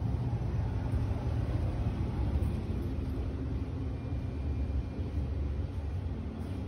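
Steady low rumble with no voices, fluttering slightly in loudness throughout.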